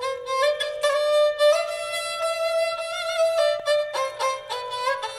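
Background music: a violin playing a slow melody of long held notes, with vibrato on the sustained notes.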